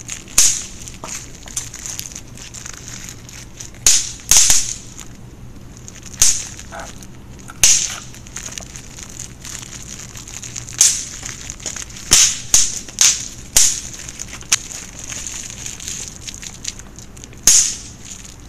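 Crinkly clear plastic wrapper squeezed and rubbed by hand, in a dozen or so sudden rustling crackles at irregular intervals, the busiest runs about four seconds in and again about twelve to fourteen seconds in.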